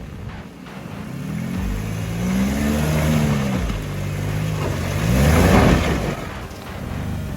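Vehicle engine revving: its pitch climbs and falls, then climbs again to the loudest point near the end before easing off.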